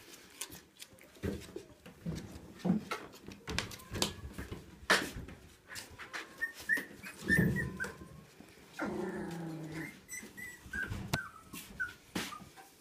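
Three-week-old Siberian husky puppies playing: small growls, high squeaks and whimpers, with frequent clicks and knocks from their paws and bodies on the wooden floor. A longer, lower cry lasts about a second, about nine seconds in.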